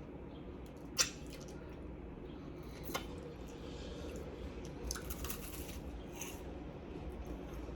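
A person eating a hazelnut cream-filled wafer: faint crunching and chewing, with two sharp clicks and a short crackly patch about five seconds in.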